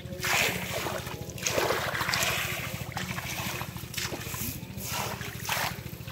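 Splashing and sloshing in shallow muddy water as hands and feet grope through it, in several short bursts, over a steady low rumble.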